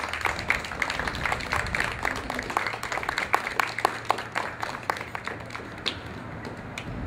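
Audience applauding, many hands clapping irregularly, thinning out and dying away near the end.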